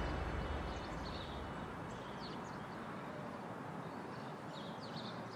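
Faint outdoor quiet with a few scattered bird chirps. A low rumble fades away in the first second or so.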